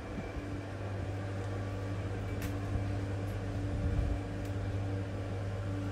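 Steady low machine hum, with a few faint ticks about halfway through.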